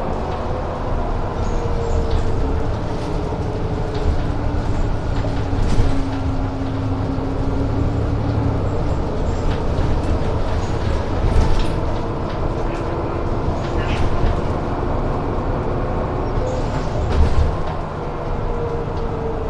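Mercedes city bus on the move: a steady engine and road rumble with a faint whine that slowly rises and falls in pitch, and scattered knocks and rattles.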